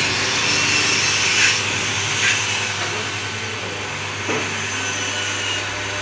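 Electric coconut-milk pressing machine running with a steady motor hum, with a few short clicks about one and a half, two and four seconds in.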